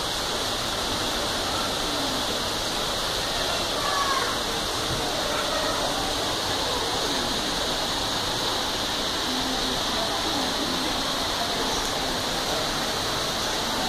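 Steady rush of running water, even and unbroken, with faint voices of people in the background.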